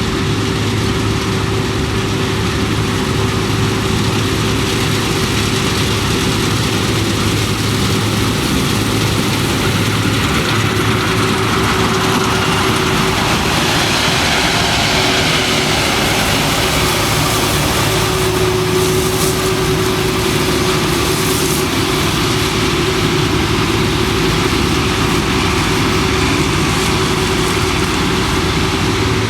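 Diesel harvest machinery running steadily in a wheat field, a low engine hum under a constant whine, with a rush of hissing noise swelling through the middle.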